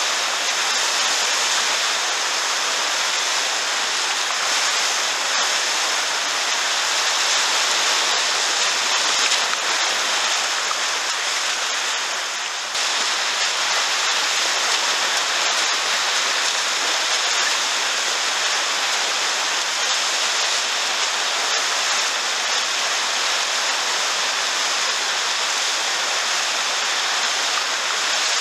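Steady rush of churning whitewater from a river rapid's standing wave, heard up close from a kayak surfing on it.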